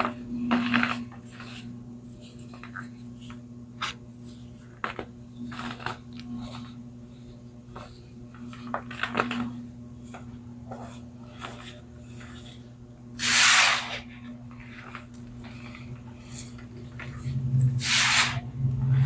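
Baking soda being crushed and crumbled: scattered small crackles, with two longer, louder crunches about ten and fifteen seconds in, over a steady low hum.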